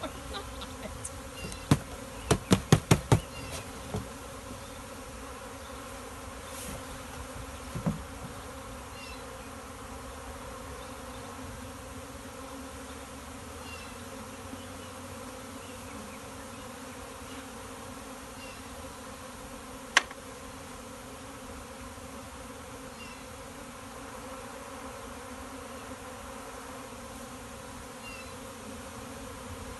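A honey bee swarm buzzing steadily. About two seconds in comes a quick run of roughly six sharp, loud knocks, with a couple of lighter knocks after it and one single sharp click about two-thirds of the way through.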